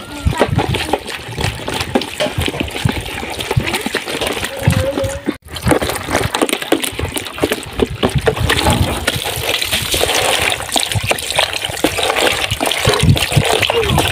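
Water pouring and splashing in a container, with many small knocks and splatters. There is a brief break about five seconds in.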